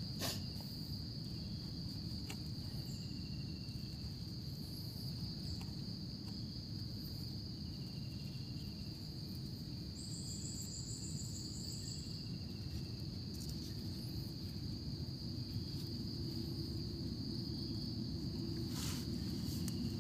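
Insects droning steadily on one high note, over a low steady rumble. About halfway through comes a short, rapid, higher trill, and faint short chirps recur every couple of seconds.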